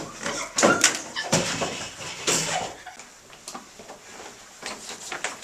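Knocks and thumps of someone jumping down off a classroom desk onto the floor, the loudest in the first second or so, then quieter scattered knocks.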